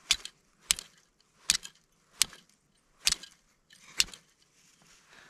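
Steel fire striker struck against a piece of flint, six sharp metallic scrapes a little under a second apart, throwing sparks onto char cloth to start a fire. The strikes stop about four seconds in.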